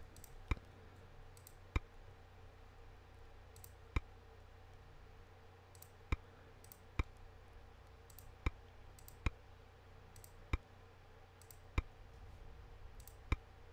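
Computer mouse button clicking about ten times, single sharp clicks spaced irregularly roughly a second apart, over a faint steady low hum.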